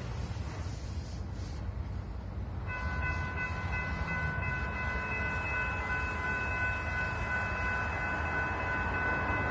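Distant diesel locomotive air horn sounding one long steady blast, a chord of several held tones, starting about three seconds in over a low rumble as the train approaches.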